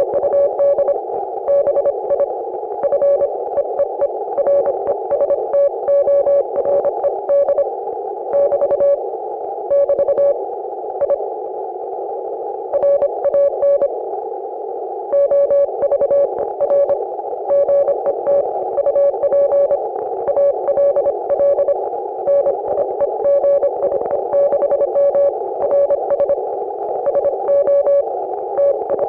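Morse code (CW) signal received on an Icom IC-718 HF transceiver: a single mid-pitched beep keyed on and off in dits and dahs, sent at a steady pace, over a constant band of receiver hiss. The code breaks off for a few seconds near the middle, leaving only the hiss, then resumes.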